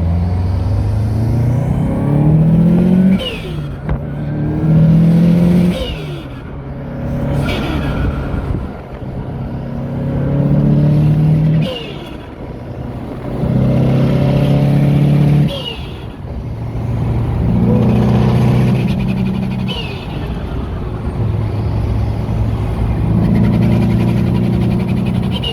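Turbocharged Subaru flat-four engine repeatedly building revs under hard throttle, then lifting off about six times. Each lift-off brings a short, fluttering chirp from the turbo: compressor surge as the throttle snaps shut.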